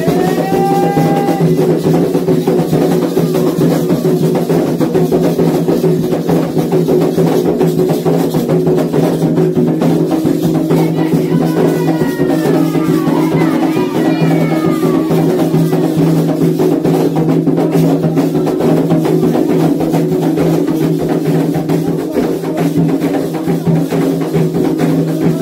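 Candomblé atabaque hand drums playing a fast, dense toque for Iansã, with a metal hand bell. A few short high gliding calls sound near the start and again about twelve seconds in.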